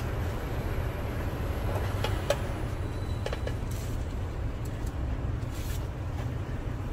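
A crepe cooking on a hot griddle, with a steady low hum under a faint sizzling hiss and a few light clicks of utensils.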